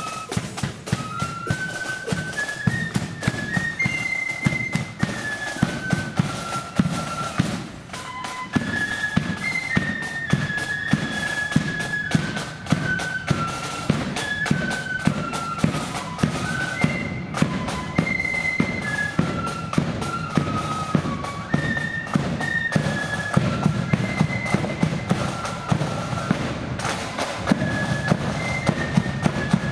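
Marching flute band playing a tune in unison on flutes over rapid snare drumming and bass drum beats.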